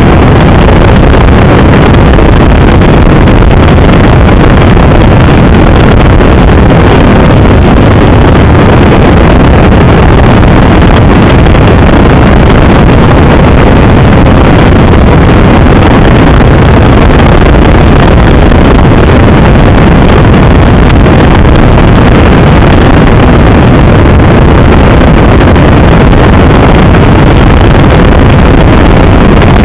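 Steady, very loud rushing noise of wind over the onboard microphone of a Bixler 2 FPV model plane in flight, unbroken and without changes.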